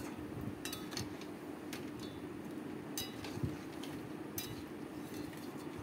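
Metal spatula scraping and clinking against an aluminium kadai as chicken pieces in masala are stirred and dry-fried (the kosha stage of a curry), with a few sharp clinks over a faint steady hum.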